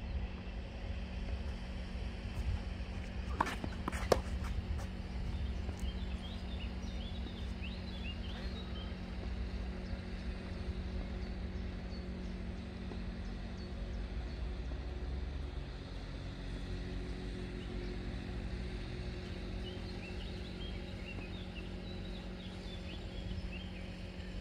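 Outdoor court ambience: a steady low hum, with two sharp knocks of a tennis ball struck by a racket a little over three seconds in, and birds chirping here and there.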